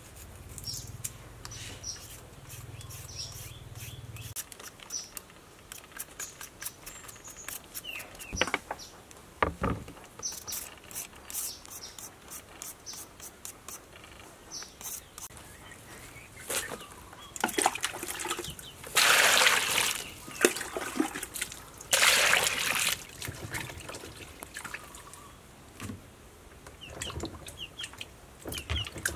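Quick scraping strokes of a hand vegetable peeler on a carrot. Later, water splashes twice, louder, as a vegetable is washed in a plastic basin, with birds chirping in the background.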